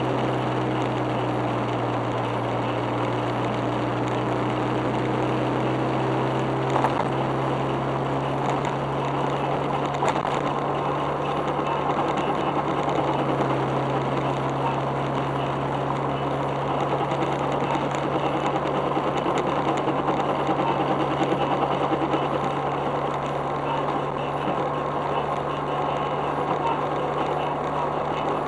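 Suzuki Alto Works on the move: steady running and road noise over a low drone that steps up slightly in pitch about halfway through. It carries a gari-gari grinding from the front wheel hubs, which the owner puts down to hubs worn 0.5 to 1 mm, because the noise remains with new bearings fitted.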